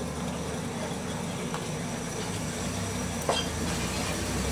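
Steady low mechanical hum, engine-like, with one sharp click about three seconds in and a few faint ticks.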